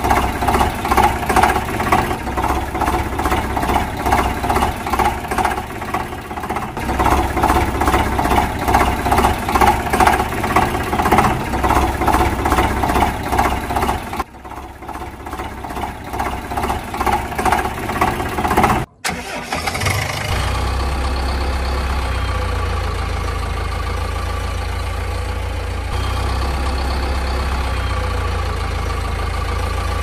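Engine running, likely a dubbed-in tractor engine sound: a rhythmic pulsing run for about the first two-thirds. Then a sudden cut to a steadier engine sound with a strong low hum.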